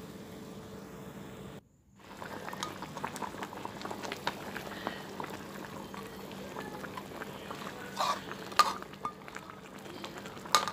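Curry sauce with fish heads boiling in a wok: a dense bubbling crackle of small pops. A metal spatula stirs through it, with a few sharp knocks of the spatula against the pan near the end.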